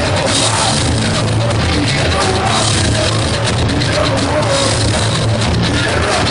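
Psychobilly band playing loud and live: upright bass, drums and electric guitar, with a steady driving beat.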